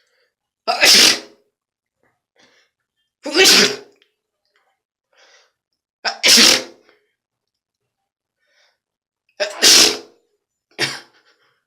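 A person sneezing over and over: four loud sneezes about three seconds apart, each with a short intake just before it, then a smaller fifth sneeze near the end. The sneezes are set off by a rolled-up tissue.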